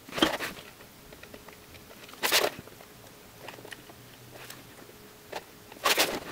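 Cardboard crunching and scraping as threaded metal light-bulb sockets standing in holes in a cardboard box are handled: three louder bursts about two seconds apart, with faint ticks between.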